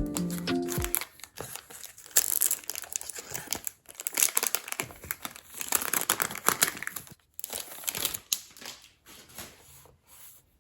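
Packaging crinkling and rustling as it is handled and opened, in uneven spurts that thin out near the end. Background music stops about a second in.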